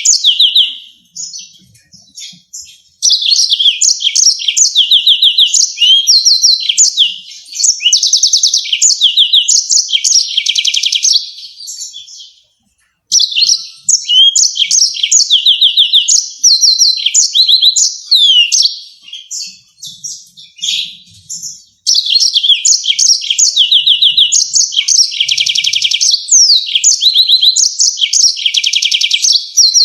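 Yellow-fronted canary singing long, fast phrases of rapid high trills and quick sweeping notes, broken by short pauses about a second in, around twelve seconds in and around twenty-one seconds in.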